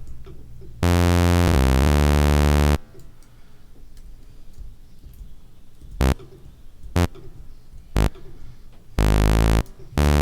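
Bass notes played on the Serum software synthesizer. First a run of several notes changing pitch over about two seconds, then three short single notes about a second apart, and another short note near the end.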